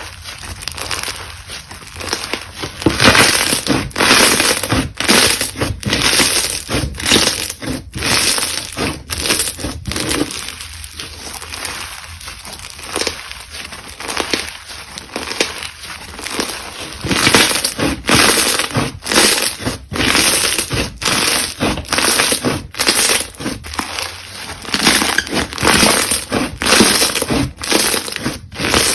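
Crunchy slime being pressed and squeezed by hand: dense crackling crunches in quick, uneven pulses.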